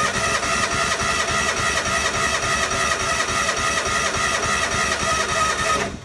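Lincoln Ranger 250 welder's gas engine being cranked by its electric starter, turning over steadily with a starter whine but not firing, then stopping abruptly near the end. A crank-no-start, which the mechanic traces to a fuel-feed problem.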